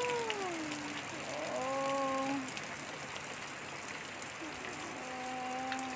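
Steady rain falling on a garden of potted plants, with a voice humming a few long drawn-out notes over it.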